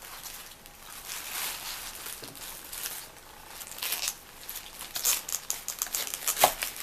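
Raw cauliflower head being cut with a knife and broken apart: several crisp crunching, tearing rustles, and one sharp knock near the end.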